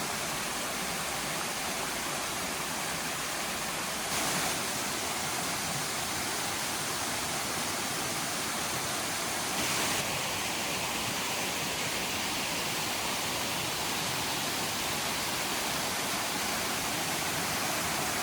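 Double Drop Falls, a two-tier waterfall about 20 feet high, rushing steadily, with two brief louder moments about four and ten seconds in.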